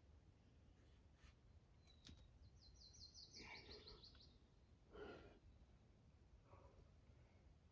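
Faint outdoor quiet with a small bird's trill partway through, a quick run of about ten high notes. About five seconds in comes a short breathy sound, like a sigh or exhale.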